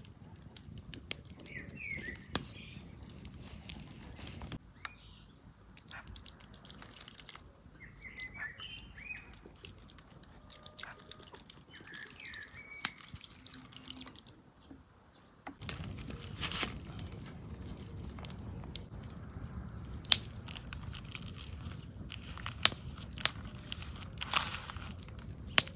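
Scattered sharp clicks and a few short, high chirps over quiet background noise; about halfway through, a louder low rumble comes in and the clicks go on over it.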